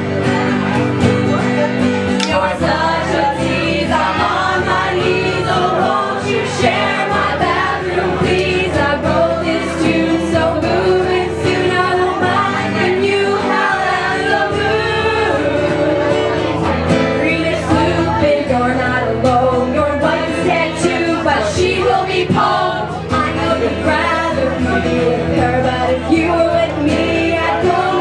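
Live female vocals with guitar: a woman singing a song at a microphone while playing guitar, with no break in the music.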